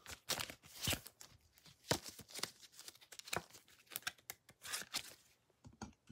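Irregular crinkles, rustles and light clicks of Panini Prizm trading cards and their plastic wrapping being handled, dying away about five seconds in.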